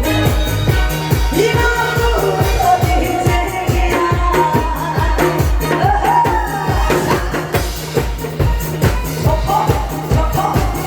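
Loud amplified pumba music: a singing voice over a backing track with a heavy, fast beat.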